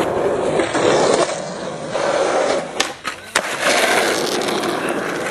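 Skateboard wheels rolling over a concrete skatepark surface, the noise swelling and fading as the board speeds up and slows. Two sharp clacks come a little under three seconds in, about half a second apart.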